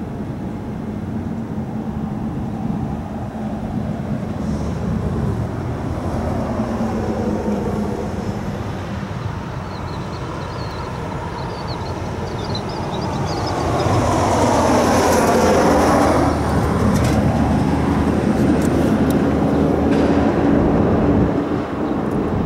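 A vehicle passing close by: a steady rumble that grows louder about two-thirds of the way through and eases off near the end.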